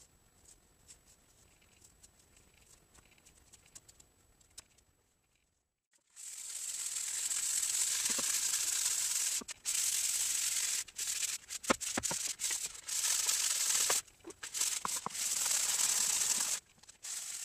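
Sandpaper rubbed briskly up and down a peeled wooden atlatl dart shaft to smooth it, a loud rasping hiss in long strokes broken by a few short pauses, starting about six seconds in. Before that, only faint light scraping of a knife point on the shaft.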